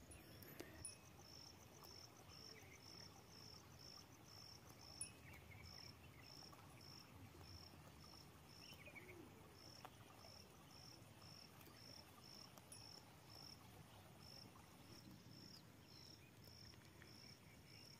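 Faint insect chirping, a short high chirp repeated steadily about twice a second with a few brief gaps, over a near-silent outdoor background.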